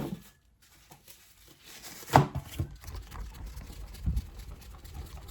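Objects being handled: a sharp knock at the start and a louder clunk about two seconds in, followed by a run of low bumps and rustling.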